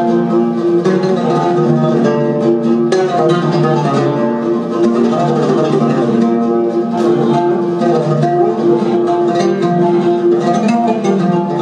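Several ouds playing a fast, dense plucked melody over a steady low accompaniment, the notes ringing on without a break.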